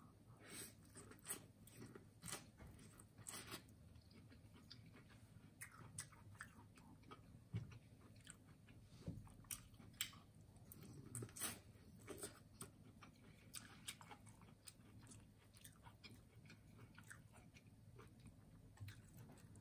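Faint close-miked mouth sounds of a person eating a sauced seafood boil by hand: biting into corn on the cob and chewing, with wet clicks and smacks at irregular intervals.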